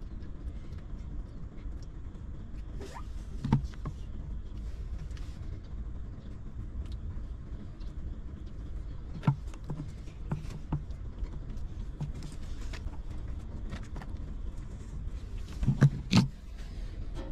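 Newborn puppies suckling at their mother: scattered soft smacks and small low grunts, a few louder ones near the end, over a steady low rumble.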